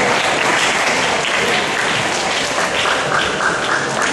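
Crowd of spectators applauding, steady and loud, with voices mixed in.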